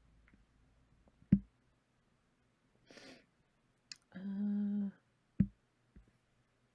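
Two sharp low thumps about four seconds apart from clicks at the computer, with a soft breath and a short held "mmm" hum from a woman between them.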